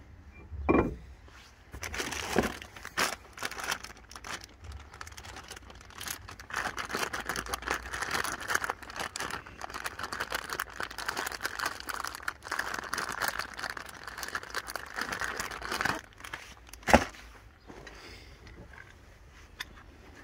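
Clear plastic zip bag crinkling and rustling as gloved hands open it and search through it, for about ten seconds through the middle. Scattered clicks of handled metal parts come before it, and a single sharp knock follows near the end.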